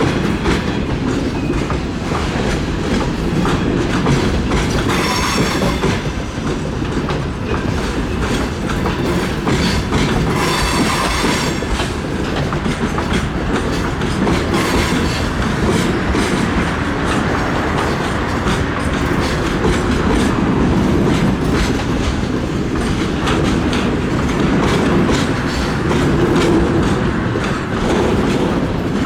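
Train wagons rolling past close by, the wheels clattering rhythmically over rail joints, with two brief high wheel squeals about five and eleven seconds in.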